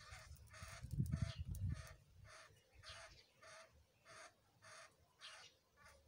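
Javan myna giving a run of short, harsh calls, about two a second, which its owner hears as whimpering from the cold after a bath. A low rumble underlies the first two seconds.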